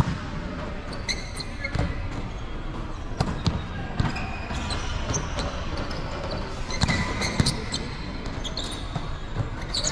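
A volleyball being struck and bouncing off the hard court floor: irregular sharp thumps, with a few short high squeaks between them.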